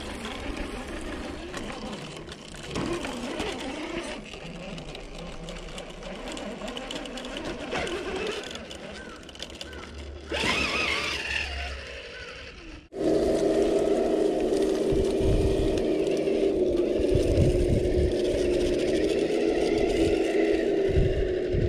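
Traxxas TRX-4 RC crawler's electric motor and geared drivetrain whining as it crawls over rocks, the pitch wavering up and down with the throttle. About 13 seconds in the sound cuts to a louder, steadier whine, with low thumps near the end.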